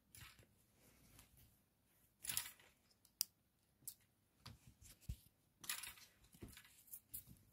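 Faint, scattered rustling and light knocks. There are two louder rustles, about two and a half seconds apart, and a sharp click between them.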